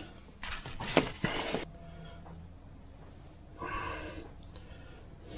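Hand tools being handled on a workbench, with two sharp metallic clinks about a second in and a short breath-like sound about four seconds in.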